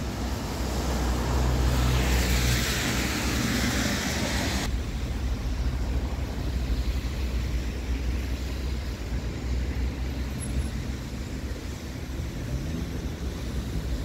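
Steady road traffic noise under a low rumble of wind on the microphone. A louder hiss rises in the first few seconds and cuts off suddenly, and near the end a vehicle's engine note rises.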